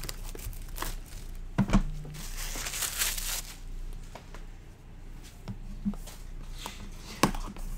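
Plastic shrink-wrap being torn off a sealed trading-card box and crinkled in the hands, with a few sharp knocks and taps from the cardboard box being handled.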